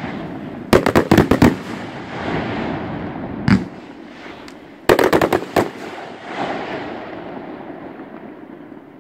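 Fireworks firing: a quick run of sharp bangs about a second in, a single bang at about three and a half seconds, and another quick run at about five seconds, with a hiss between the volleys that fades away near the end.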